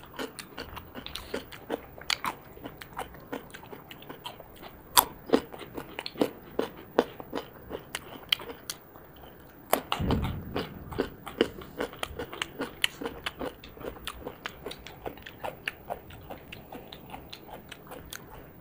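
Close-miked crunching and chewing of raw salad: carrot and cucumber slices being bitten and chewed, a rapid run of sharp crisp crunches. A heavier, duller crunch comes about ten seconds in.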